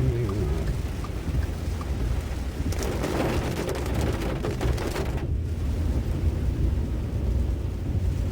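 Heavy tropical-storm rain and wind, an even rush with a steady low rumble underneath, swelling a little about three seconds in.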